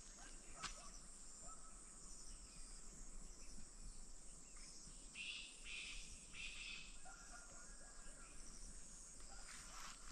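Faint outdoor ambience: a steady high hiss of insects, with a few short bird chirps around the middle.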